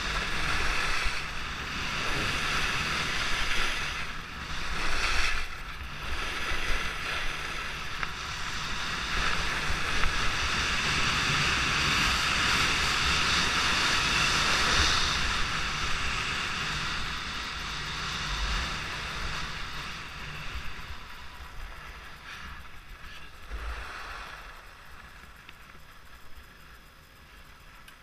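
Wind rushing over the camera's microphone, with skis hissing over groomed snow on a fast downhill run, swelling and easing with the turns. It dies down over the last several seconds as the skier slows.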